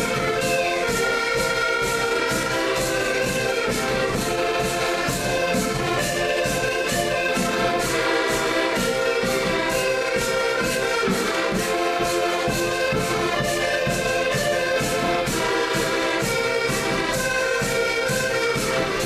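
Music with a steady beat over several sustained instrument tones.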